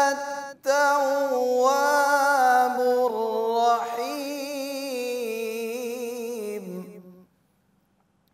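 A man recites the Quran in a melodic, drawn-out chant, stretching out 'at-tawwab' at the end of the phrase 'innaka anta at-tawwab', with a short breath about half a second in. His voice falls in pitch and stops about seven seconds in, leaving near silence.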